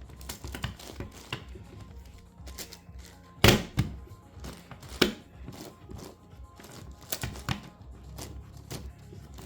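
Layers of an 11x11x11 Rubik's cube being turned by hand: irregular plastic clicks and clacks, with two louder clacks about three and a half and five seconds in.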